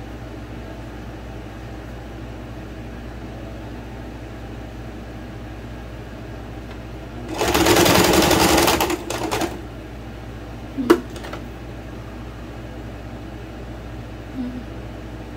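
Electric sewing machine stitching through gathered fabric in one run of about a second and a half, then two short stop-start bursts. A sharp click follows a moment later.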